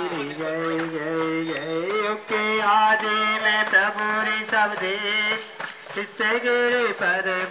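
Hindi devotional aarti hymn sung to musical accompaniment, with long, wavering held notes.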